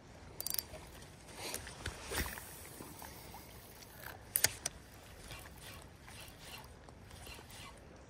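Spinning rod and reel being handled and cranked during a lure retrieve: a few sharp clicks and knocks, the loudest about four and a half seconds in, then faint light ticking about three times a second.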